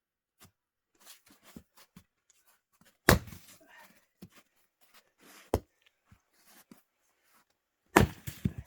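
Axe splitting firewood: three sharp blows about two and a half seconds apart, the first and last loudest and each followed by a brief clatter, with fainter knocks of wood between.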